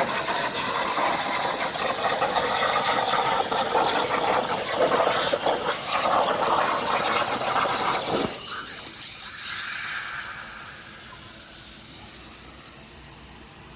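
CNC plasma cutter cutting a sheet-metal windshield panel: a loud, steady hiss that cuts off sharply about eight seconds in. A quieter hiss of air is left, fading away.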